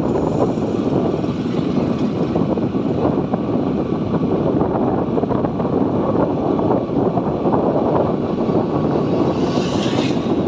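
Motorcycle under way at a steady speed: engine and wind rushing over the microphone. A brighter hiss swells briefly about ten seconds in.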